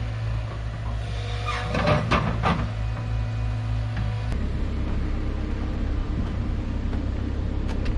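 Tracked excavator's diesel engine running steadily, with the bucket scraping and knocking on rock and clay about two seconds in. Just past four seconds the steady engine drone changes to a different pitch.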